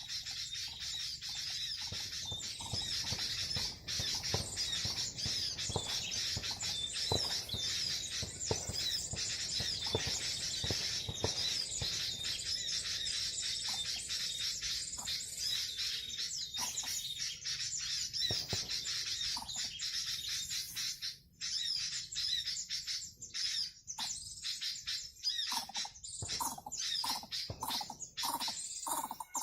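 Dense, high-pitched bird chirping and twittering, with many short calls running together. In the last third it breaks up into separate short calls with gaps between them.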